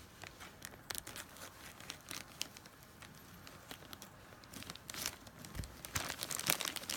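A Happy Meal toy's packaging being torn open and handled: crinkling and tearing with scattered small crackles, busier near the end.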